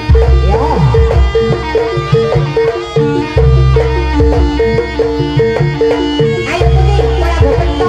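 Javanese traditional ensemble music accompanying a Buto dance: a hand-drum pattern under a steadily repeating pitched note, with deep bass swells a few times through.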